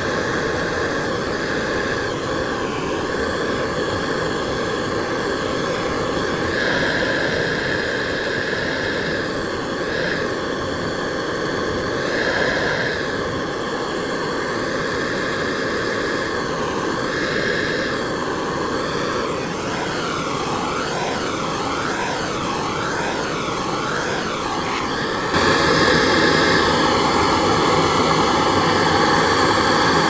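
Gas blowtorch flame burning with a steady rushing noise while heating a copper boiler joint for silver soldering. Its tone changes several times, and it gets suddenly louder near the end.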